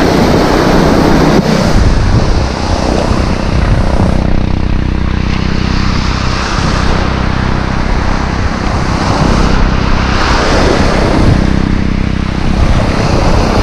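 Surf washing up the sand and running back, mixed with wind rumbling on the microphone. The noise swells and eases as each wave comes in.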